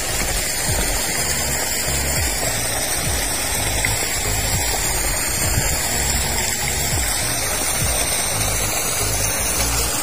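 Steady rushing noise with background music underneath, carried by a low bass line.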